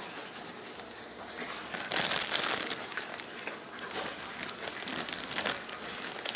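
Crinkling and rustling, as of a wrapper or bag being handled, that grows louder and denser about two seconds in.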